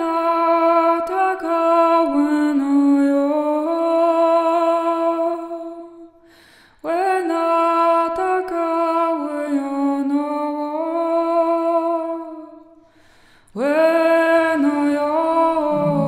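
A woman singing long, slow wordless notes in three phrases, with short breaths between them. The pitch steps gently from note to note, and a lower tone joins near the end.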